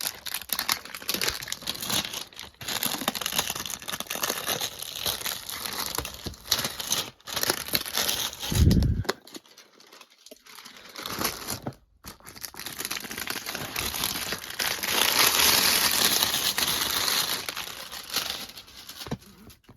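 Packaging being torn open and crumpled by hand: irregular crinkling and tearing with short pauses, one low thud about halfway through, and the longest, loudest stretch of crinkling near the end.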